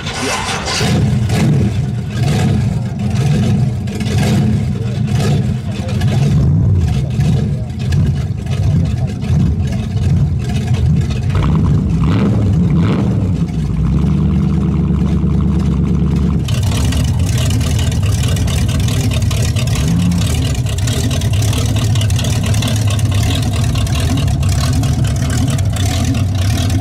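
Car engines running and revving, with an abrupt change in the sound about two-thirds of the way through.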